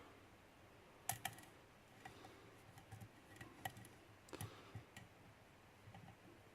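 Faint, irregular small metal clicks and ticks of a hook pick working the pin stack inside a lock under light tension, about a dozen in all, with a close pair about a second in.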